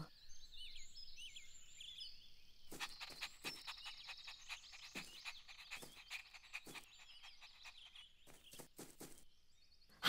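Faint cartoon garden ambience: high little bird chirps in the first couple of seconds, then a run of soft clicks over a high, rapid trill.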